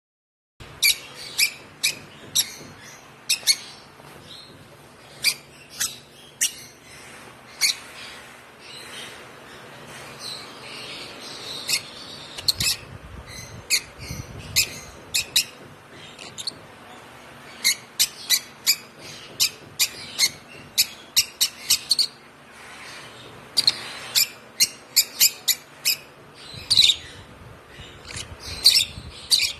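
A one-month-old African lovebird chick chirping: many short, sharp, high calls at irregular intervals, some coming in quick runs.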